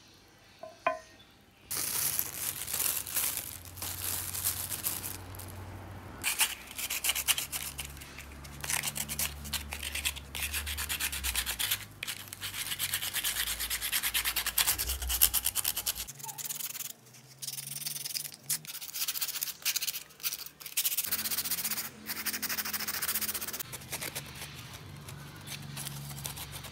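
Sandpaper rubbing along the edge of an air-dry clay piece in rapid back-and-forth strokes. The sanding starts about two seconds in and pauses briefly a few times.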